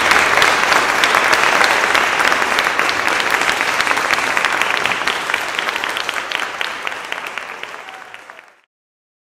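Audience applauding, the clapping thinning and fading over the last few seconds before it cuts off suddenly near the end.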